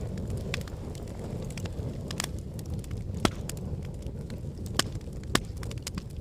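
Wood fire burning in a fireplace: a steady low rumble of flames with constant small crackles and three louder sharp pops from the burning logs, about three, five and five and a half seconds in.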